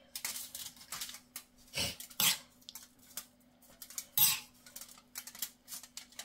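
Metal spoon scraping and clinking against a ceramic bowl as a chopped tomato-and-onion stuffing is scooped out, in irregular clicks with a few sharper knocks about two and four seconds in. A faint steady hum runs underneath.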